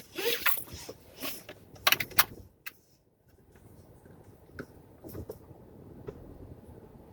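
Clicks and rattles, several sharp ones close together in the first couple of seconds, then a brief dropout to near silence and a faint low rumble inside a car with an occasional click.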